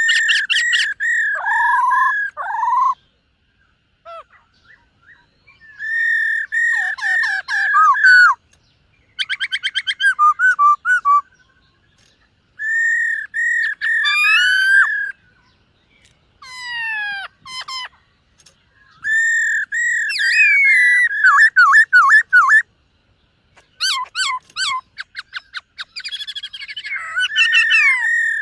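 Black-throated laughingthrush singing: loud phrases of clear, repeated whistled notes mixed with fast trills and sliding notes, each burst lasting a few seconds with short pauses between.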